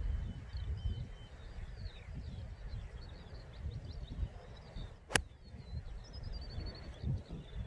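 A pitching wedge strikes a golf ball once, a single sharp click about five seconds in. Birds twitter throughout over a low rumble of wind on the microphone.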